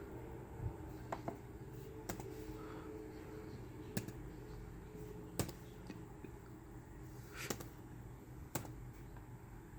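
Sparse single computer clicks, about eight at uneven intervals, over a faint steady hum.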